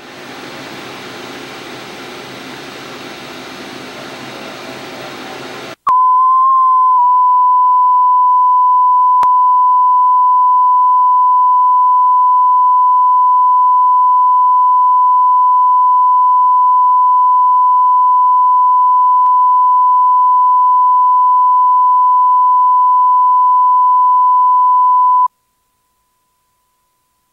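A Sony BVH-2000 1-inch Type C videotape recorder running, an even hiss of its machinery for about six seconds. Then a loud, steady line-up reference tone played back from the tape's test-card leader takes over. The tone wavers briefly as it starts and cuts off abruptly near the end.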